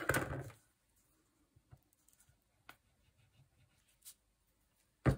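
Small handling sounds of paper crafting: a brief rustle at the start, then faint ticks and taps of tools and paper on a cutting mat, and one sharp knock near the end.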